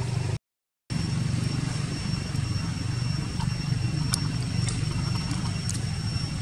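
Steady low engine hum with a thin, steady high tone above it and a few faint ticks. The sound cuts out for about half a second just after the start.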